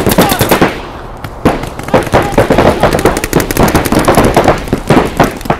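Paintball markers firing: a fast string of shots that breaks off under a second in, then scattered single shots and short strings until near the end.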